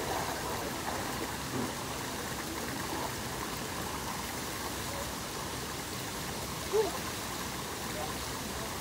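Steady rush of running water, with faint voices in the background and a brief pitched sound about seven seconds in.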